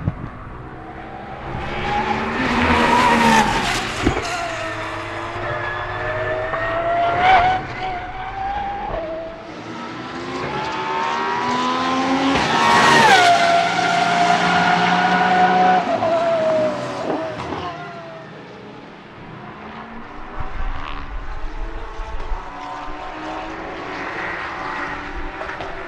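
Pagani Huayra R Evo's naturally aspirated 6.0-litre V12 running hard on track, its pitch climbing and falling repeatedly as it revs up and shifts through the gears. The highest, loudest rev comes about halfway through, followed by a sharp drop in pitch.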